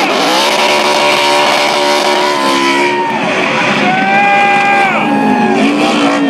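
Several NASCAR race trucks' V8 engines running at racing speed as the trucks go by. Several engine notes overlap, and each slides down in pitch as a truck passes.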